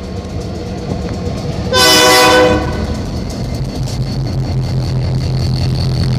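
A diesel locomotive horn sounds one short blast about two seconds in, over the continuous rumble of the passing train. A steady low diesel engine drone comes up from about four seconds on.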